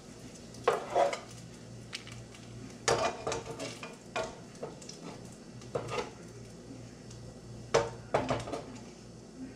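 Metal tongs clinking and scraping against a pan on the stove in four short bursts as pieces of turkey are turned and lifted, over a light sizzle of frying.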